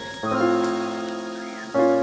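Background music of sustained keyboard chords, one chord coming in about a quarter second in and a new, louder one near the end.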